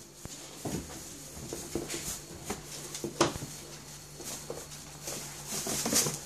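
Golden retriever puppies' paws and claws pattering and scuffling on a hard floor: irregular clicks and scrapes, loudest about three seconds in and near the end.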